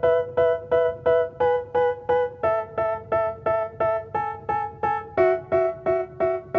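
Background music: a piano-like keyboard playing short repeated chords, about three a second, with the chord changing twice.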